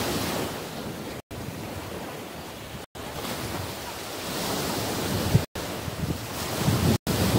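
Surf washing onto a sandy beach with wind buffeting the microphone, the low gusts stronger in the second half. The audio drops out for an instant four times.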